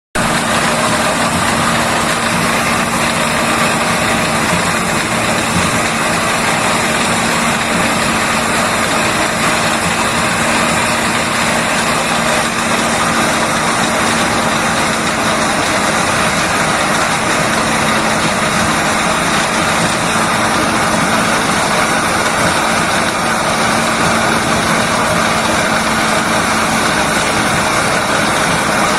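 Engine-driven corn-shelling machine running steadily: a continuous loud mechanical din with a constant hum, never changing in pace or level.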